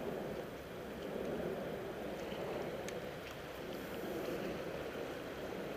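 Steady rushing outdoor ambience of wind on the microphone and harbour water, with a faint click about three seconds in.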